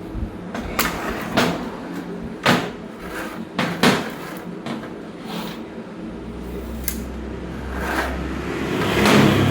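Irregular knocks and clunks, five or six over the span, of hard objects being handled and set down, with a low steady hum joining about six seconds in and a louder swell of noise near the end.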